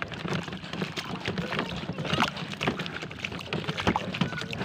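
Water splashing and lapping around a small boat, with irregular knocks and clicks and a low steady hum underneath.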